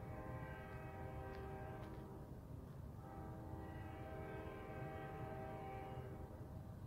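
Nathan K5LA five-chime air horn on an Amtrak train's lead cab car, sounding long blasts for a grade crossing: one ends about two seconds in, a second runs about three seconds, and a third begins near the end.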